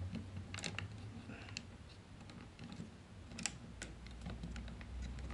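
Jointed parts of a Takara Masterpiece MP-36 Megatron figure clicking as they are folded and pressed into place by hand: a handful of sharp clicks, grouped about half a second in and again about three and a half seconds in.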